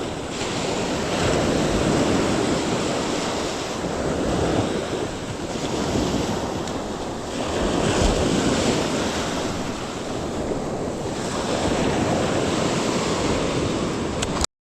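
Surf washing onto a beach, swelling and falling every few seconds, with wind buffeting the microphone. The sound cuts out abruptly near the end.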